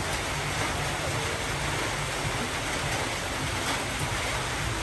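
Steady, even rushing noise with no rhythm and no distinct events.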